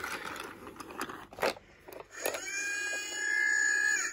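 Chuggington Interactive Railway Brewster toy engine being handled, with plastic clicks and scrapes. About two seconds in, a steady electronic tone starts from the toy's speaker, holds one pitch for nearly two seconds, grows louder, and cuts off sharply near the end.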